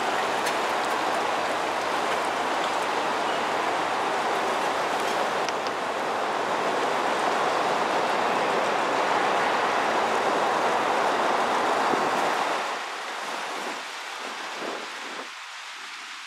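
Steady roar of road traffic on the elevated road deck overhead, a hiss-like rush of tyre noise that drops away sharply about twelve seconds in.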